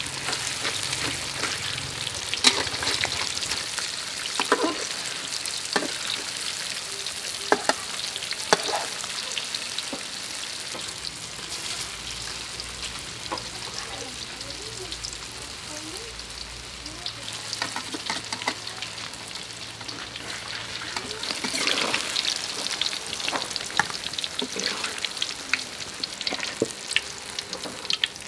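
Tofu cubes frying in hot oil in a steel wok, a steady sizzle with a metal spatula scraping and knocking against the wok every few seconds as the pieces are turned.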